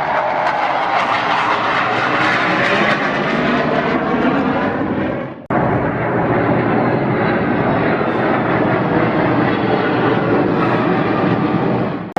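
Jet aircraft passing overhead at an air display: a loud, steady roar that sweeps in tone as they go by. It cuts off abruptly about halfway through and comes straight back.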